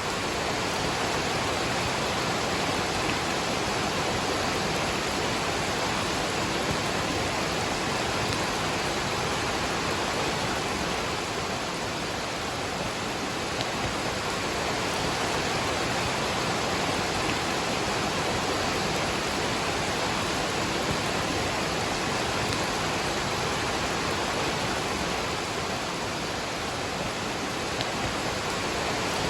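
Waterfall and rain: a steady, unbroken rush of falling water.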